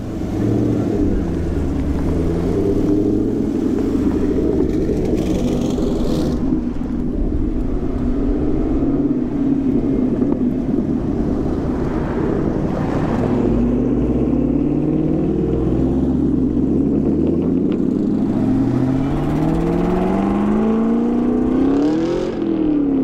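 Car engines running with a low, steady drone as cars pull out of the lot, led by a red sixth-generation Chevrolet Camaro. Over the last few seconds the pitch climbs steadily as a car accelerates away, then drops just before the end.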